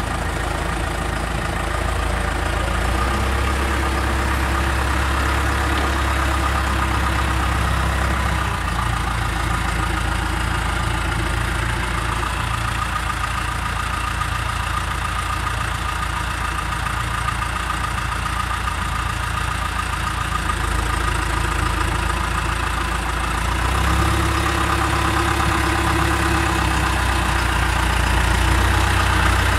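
Backhoe loader's diesel engine running steadily. Its low rumble strengthens twice for a few seconds, about three seconds in and again near the end.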